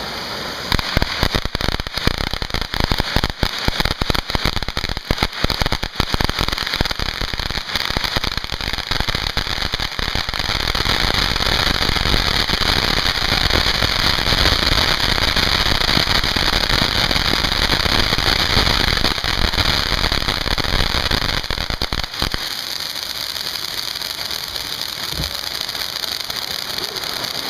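Several TNT Star Voyager ground fountains spraying at once. For the first ten seconds or so there is dense crackling, then a steady loud hiss that drops lower about two thirds of the way through.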